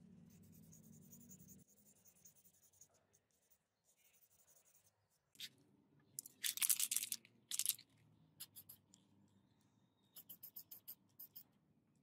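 Sandpaper scratching against a wooden sword-grip piece, with a loud run of strokes about halfway through and a quick series of short strokes near the end. There is a light knock just before the main run.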